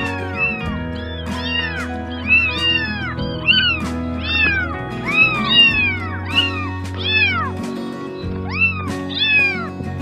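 Kittens mewing over and over: short, high mews that rise and fall in pitch, one or two a second, over background music with steady low held notes.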